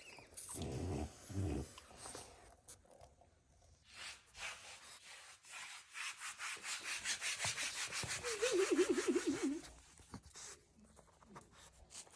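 French bulldog grunting at first, then panting fast and evenly for several seconds, with a short wavering whine partway through.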